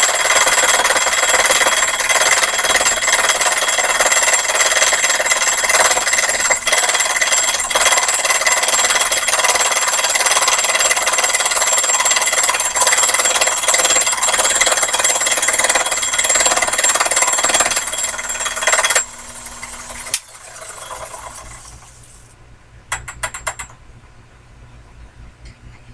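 Sherline mini lathe running under a cut while turning between centers: a loud, steady whine with rattling. The machine shuts off about 19 seconds in and winds down, followed near the end by a brief run of rapid clicks.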